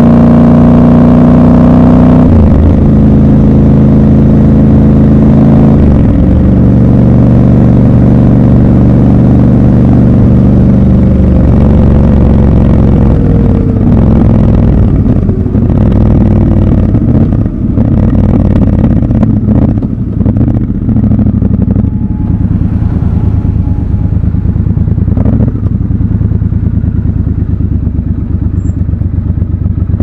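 Triumph Scrambler 1200 XC's parallel-twin engine heard from the rider's seat on the move. Its note changes in steps twice in the first six seconds, slides down about twelve seconds in, and then runs lower and more unevenly.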